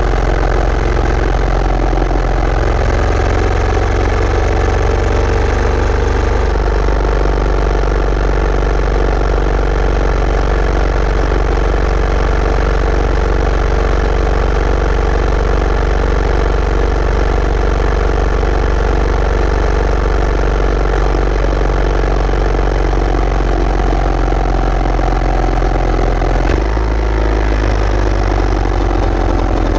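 Yamaha SR400's single-cylinder four-stroke engine running steadily, its note shifting a little a few seconds in and again near the end.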